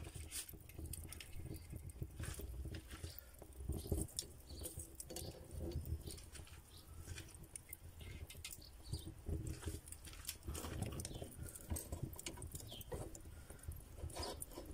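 Metal skewers being laid one after another across the brick rim of a charcoal grill, making irregular small clicks and taps of metal on brick and metal over a low rumble.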